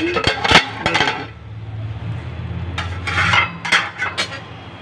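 Aluminium cooking-pot lid clinking and scraping against the pot as it is handled and lifted off, in two bursts of clatter: one at the start and another about three seconds in. A low hum runs underneath.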